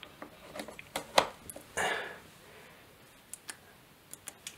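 Clicks of a mains plug being pushed into a mains power unit and its front power button being pressed. A sharp click about a second in is the loudest, with a brief rustle just before two seconds and a few faint ticks near the end.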